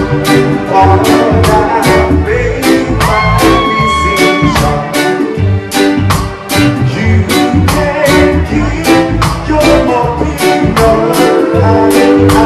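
Live reggae band playing loud: a steady drum beat with bass and guitar under a male singer, and one long held note about three seconds in.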